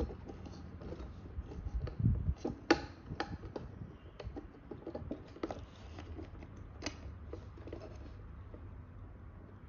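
Hands handling and clipping a small electronic speed controller board into a plastic and carbon-fibre motor mount: scattered light clicks and scratches, with a low bump and the sharpest clicks about two to three seconds in.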